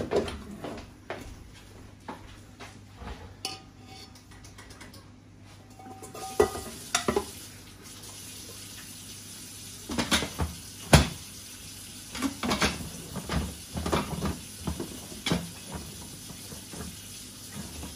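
Stainless steel inner pot and lid of an Instant Pot electric pressure cooker being handled and fitted: a run of metallic clunks and knocks, the loudest about eleven seconds in.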